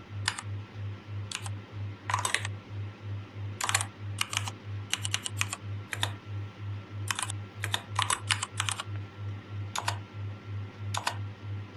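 Mechanical-keyboard keystroke clicks from the Mechvibes sound software as keys are typed, coming irregularly, singly and in quick runs of two or three. A low hum pulses steadily underneath, about three times a second.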